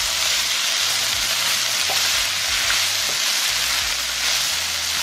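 Shredded chicken sizzling in a hot skillet while being tossed and stirred with tongs, a steady hiss.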